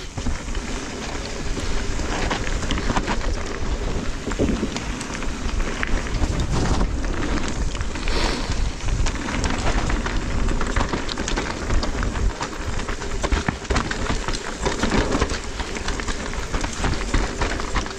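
Mountain bike ridden fast down a rough, rocky trail: tyres crunching and skittering over loose stone, with a constant patter of small knocks and rattles from the bike, and wind rumbling on the microphone.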